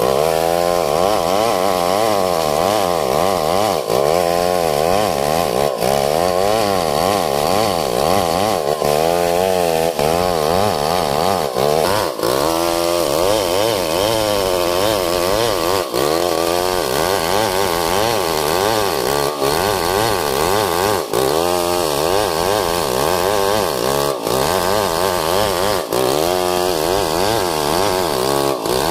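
STIHL 070 two-stroke chainsaw running under load as it rip-cuts a long log lengthwise into a beam. The engine note wavers up and down continually as the cut goes on.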